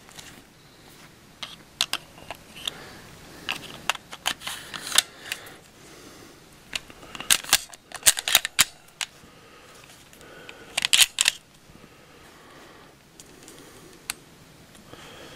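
Walther PPQ M1 9mm pistol being reassembled by hand: the slide fitted onto the polymer frame and worked, making several clusters of sharp metal-and-plastic clicks and short rattles, with a lone click near the end.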